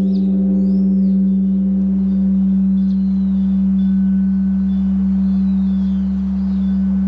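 Large bronze Korean Buddhist temple bell (beomjong) ringing out after a strike: a deep, steady hum while its higher tones die away over the first few seconds. Small birds chirp faintly over it.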